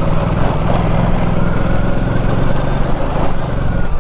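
Motorcycle engine running steadily as the bike rides along a dirt track, heard from on the bike itself.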